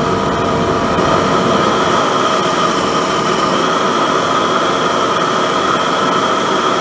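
High-velocity propane forge burner running full, its blue jet flame making a steady, loud, even noise that holds the same level throughout.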